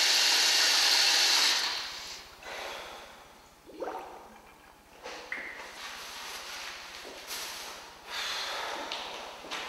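Running tap water at a sink, a loud steady hiss that stops about two seconds in. Then a man breathes and snorts with his hands over his face, and near the end there is a short rustle as a paper towel is pulled from a wall dispenser.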